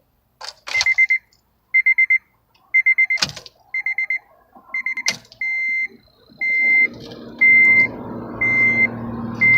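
Car warning chime beeping about once a second, with a few sharp clicks. After about seven seconds the Honda Civic's R18 1.8-litre four-cylinder engine starts and settles into a steady idle through a new DNA Motoring cat-back exhaust, while the chime keeps beeping.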